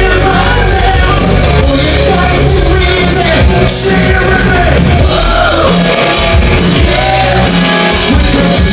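Live hard rock band playing loudly: a lead singer shouting and singing over distorted electric guitar, bass guitar and a Tama drum kit.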